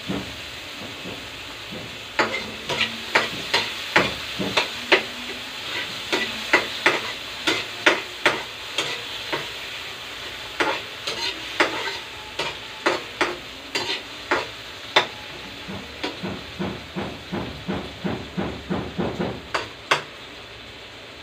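Metal spatula scraping and knocking against a metal wok, about two strokes a second, while garlic, onion and tomato sauté in sizzling oil. The stirring starts about two seconds in and quickens near the end.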